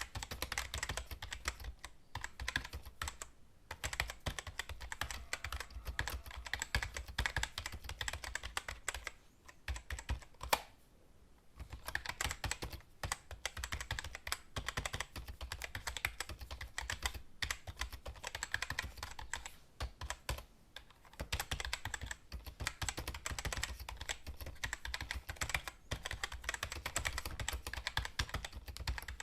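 Fast typing on a computer keyboard: a dense, uneven run of key clicks, broken by a few short pauses, the longest about eleven seconds in.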